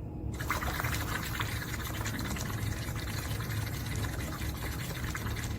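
Water bubbling as air is blown through a drinking straw into a glass of water, one long steady exhale starting about half a second in. It is done as a bubble-blowing breathing exercise.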